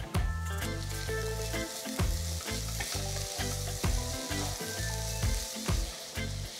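Chopped tomato going into a kadai of onions and capsicum frying in oil and ghee, sizzling, with a spatula stirring the mix. The sizzle grows louder about a second in.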